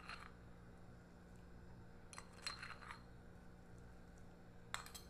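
Near silence: a low steady hum, with a few faint clicks and rustles from handling at the stove as salt is sprinkled into a pot of soup.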